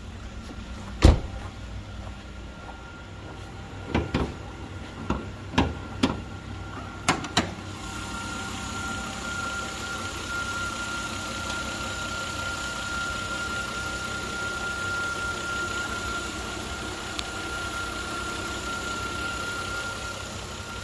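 A car door shuts with a loud thump about a second in, then a run of clicks and knocks follows as the bonnet is released and raised. From there on the Volvo XC70's 3.2-litre straight-six idles steadily, with a thin constant whine, heard from the open engine bay.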